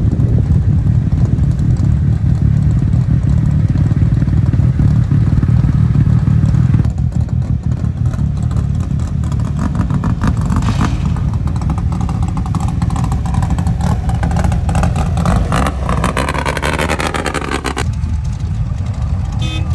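Off-road race vehicles' engines running in a staging line, a steady deep rumble. From about twelve seconds in, an engine revs up, its pitch rising over several seconds until the sound cuts off sharply near the end.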